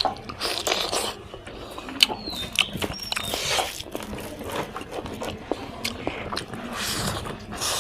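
A person chewing and biting spicy pork close to the microphone, with irregular wet clicks and smacks of the mouth.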